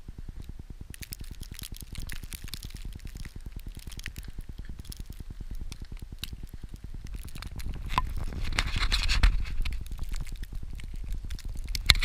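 Snow crunching and scraping under someone moving through a deep drift, with a fast low flutter and rumble from wind buffeting the camera's microphone. A louder stretch of scraping comes about eight to ten seconds in, and a sharp knock right at the end.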